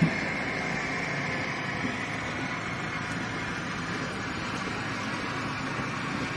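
Steady whine and rumble of jet aircraft noise on an airport apron, with a brief knock right at the start.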